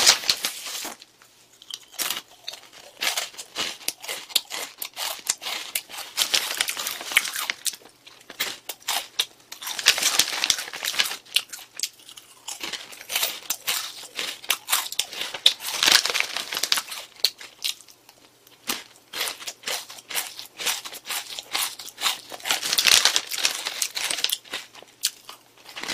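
Crinkling of a foil-lined snack pouch and its inner packets being handled, mixed with the crunching of Calbee Jagabee potato sticks being bitten and chewed.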